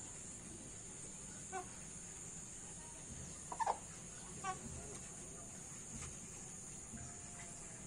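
A few short clucks from a fowl, the loudest a brief call about three and a half seconds in, over a steady high chirring of insects.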